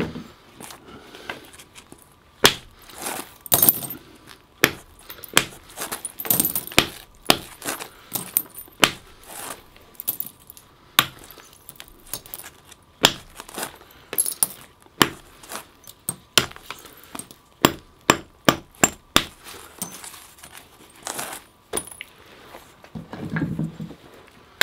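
Flint knapping: an antler hammer striking the edge of a flint adze blank to take off flakes, giving a series of sharp clicks and knocks at irregular intervals, a few a second, more closely spaced in the second half.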